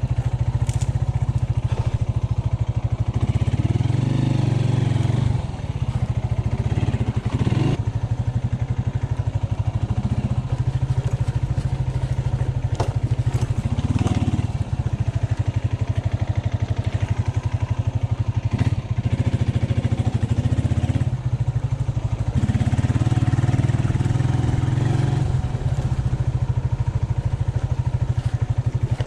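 AKT motorcycle engine running at low speed on a rocky dirt track, the revs rising and falling over and over with the throttle. A few short knocks and rattles come from the bike over the stones.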